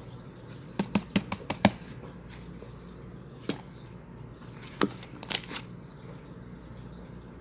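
Slime being played with by hand, making sharp clicking pops: a quick run of about six about a second in, then a few single pops later.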